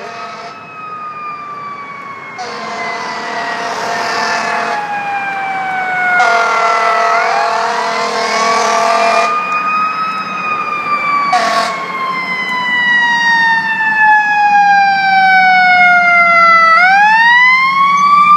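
Fire apparatus Q siren winding down in a long falling wail, then spinning back up twice, about seven seconds in and near the end. Air horn blasts sound over it three times, the last one short, and the whole thing grows steadily louder as the apparatus approaches.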